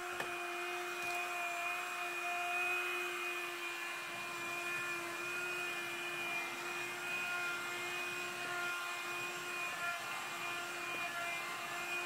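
CLEANmaxx cordless cyclone handheld vacuum running steadily with a constant motor whine over a hiss of suction, its small nozzle working over a carpeted car floor mat.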